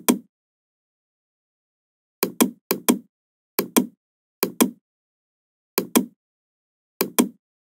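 Computer mouse button clicking, each click a sharp press-and-release pair, about seven of them at uneven intervals with dead silence between.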